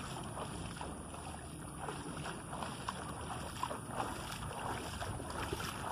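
Lagoon water sloshing and splashing around a man's legs as he wades through it hauling in a dripping cast net, the small splashes getting busier after about two seconds. Steady wind on the microphone underneath.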